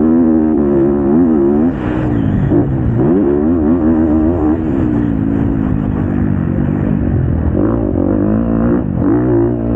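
Motocross bike engine at full throttle on a sand track, its revs rising and falling as the rider works the throttle and gears. The revs drop sharply about two seconds in and again near the end, then climb back.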